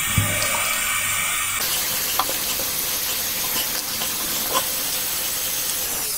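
Tap water running steadily into a sink while a face is washed by hand, with a few soft splashes.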